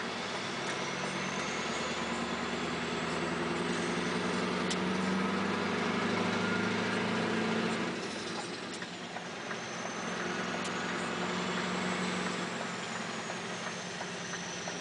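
Straight-piped Scania R560 V8 diesel heard from inside the cab, pulling under load with its pitch climbing, then a gear change about eight seconds in and a second pull that eases off near the end. A high whine rises and falls along with the engine.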